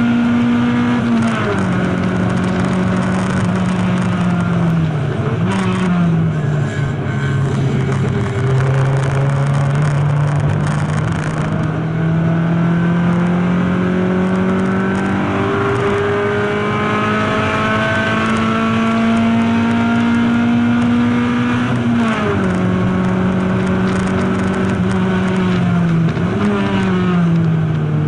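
Race car engine at racing speed, heard from inside the stripped, caged cockpit: the revs drop sharply about a second in, then climb steadily through a long pull, drop again about three-quarters of the way through and once more shortly before the end, over constant road and tyre noise.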